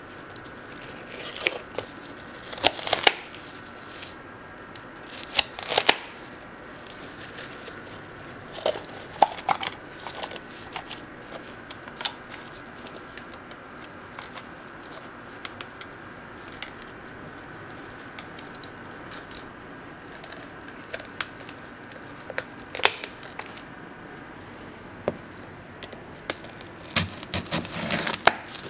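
A steel chef's knife knocks and taps on a plastic cutting board while cutting candied apple pieces, making sparse sharp clicks. Near the end comes a dense run of crunching cracks as the knife cuts through an apple's hard candy shell. A faint steady high hum runs underneath.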